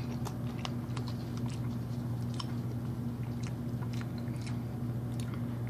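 A person chewing a mouthful of soft mac and cheese mixed with banana, with faint irregular wet mouth clicks, over a steady low hum.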